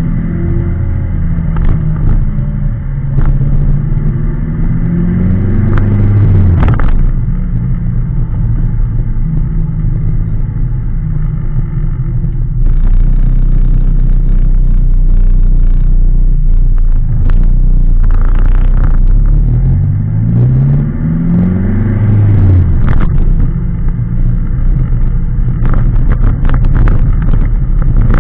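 Open-top Opel roadster driving with the roof down: the engine rises in pitch several times as the car accelerates and shifts, with steadier cruising rumble between. Wind buffeting and road noise come through on the car-mounted camera.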